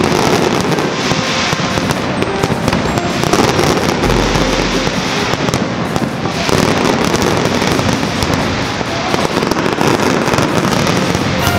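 Large fireworks display going off in a dense, continuous barrage of bangs and crackling, with no let-up.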